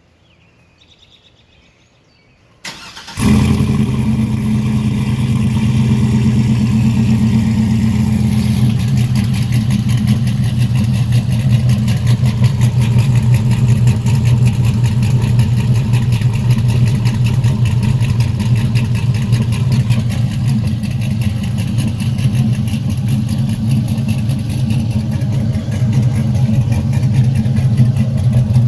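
A stock GMC Sierra's 5.3-litre V8 starts up about three seconds in and settles into a loud, steady idle through long-tube headers, a catless Y-pipe and a single 4-inch exhaust tip.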